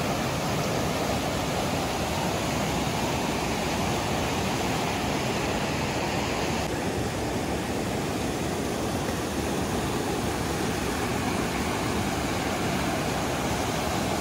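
Fast-flowing Ganga (Bhagirathi) river rushing, a steady dense wash of water noise; about seven seconds in the higher hiss of it softens slightly.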